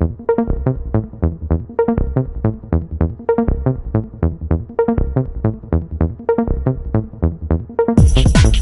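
Electronic dance music with a steady pulsing beat, about four pulses a second, swelling fuller and louder near the end.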